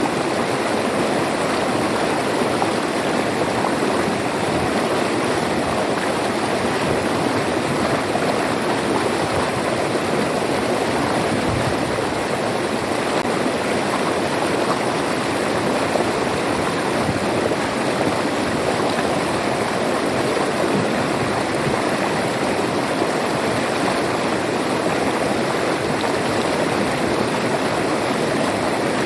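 A river's flowing water rushing steadily, an even, unbroken rush.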